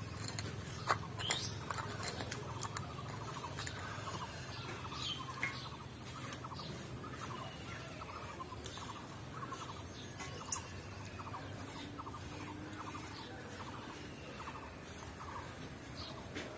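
Birds calling repeatedly in the background: a steady run of short calls, roughly two a second, with a few sharp clicks, the loudest about a second in and about ten seconds in.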